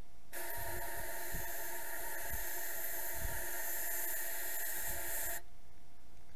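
Compressed-air blow gun blowing a steady hiss with whistling tones in it, lasting about five seconds and cutting off suddenly. The air is driven backwards through the cooling circuit of a Yamaha F60 four-stroke outboard to purge the water from it.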